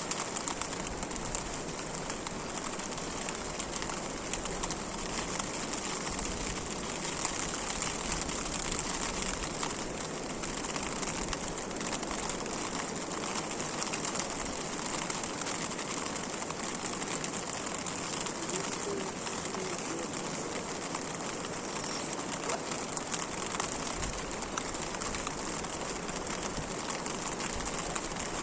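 Steady rain falling, a dense haze of small drop hits without a break.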